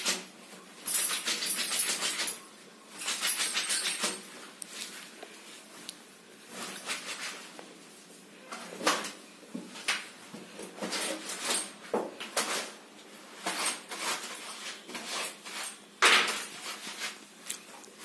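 A wet shirt being scrubbed by hand on a tiled floor. Quick runs of swishing scrubbing strokes come in the first few seconds, then slower, separate strokes and knocks, the loudest near the end.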